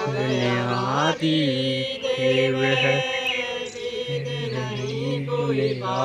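Male chanting of a sumarani, a devotional prayer song to Badadev, sung in long held notes that bend up and down with short breaths between phrases.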